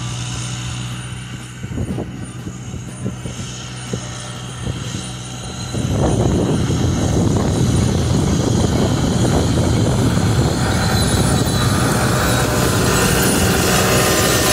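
New Holland TL tractor's diesel engine running steadily while pulling a corn planter. It grows much louder and noisier about six seconds in.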